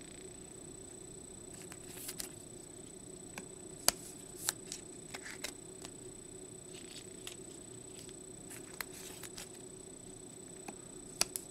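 Trading cards being slid into rigid plastic top loaders and handled on a table: scattered light clicks and scrapes, the sharpest about four seconds in, over a steady faint hum.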